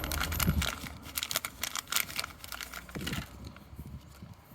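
Packaging crinkling and tearing as a new gearbox fill plug and washer are unwrapped, dying away about three seconds in.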